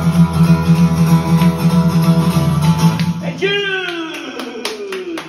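Acoustic guitar strumming to the close of a song, then about three seconds in a singer's long shout sliding down in pitch as the guitar dies away, with a few claps near the end.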